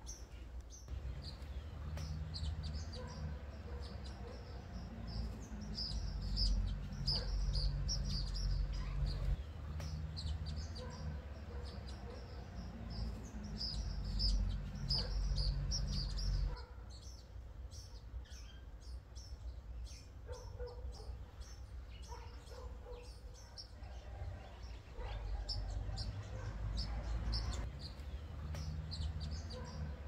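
Small birds chirping and twittering in quick, high-pitched notes over a low steady rumble; the rumble drops away about halfway through and returns later.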